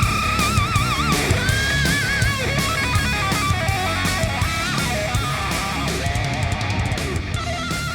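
Background rock music: a guitar lead with wide vibrato on held notes over a steady drum beat.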